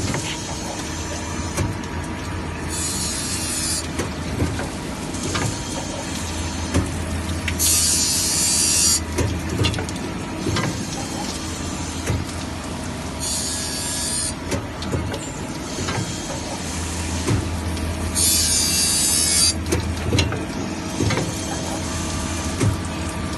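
Samach RMF158B circular saw blade tooth grinding machine running through its sharpening cycle: a steady motor hum with light knocks, and a short burst of high hiss about every five seconds.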